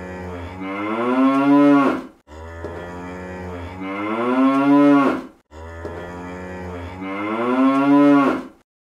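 The same recorded cow moo played three times in a row. Each starts as a low hum and opens into a louder call that rises in pitch and cuts off suddenly.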